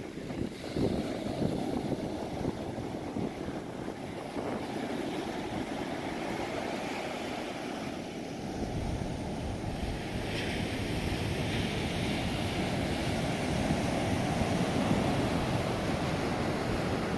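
Ocean surf breaking and washing up a sandy beach in a steady rush. Wind rumbles on the microphone, heavier in the second half.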